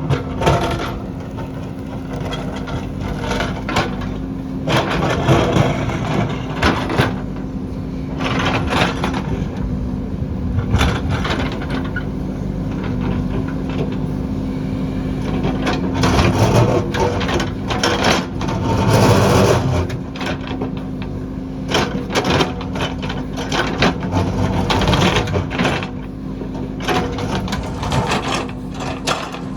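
JCB backhoe loader's diesel engine running with a steady hum, under irregular clanks, knocks and scraping from the bucket working rock.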